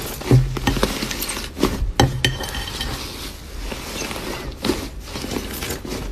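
Thick blue slime being squeezed and pressed by hand in a bowl, giving a dense run of sharp crackling clicks and squelches as air pops out of it, with a couple of heavier squishes about a third of a second in and at two seconds.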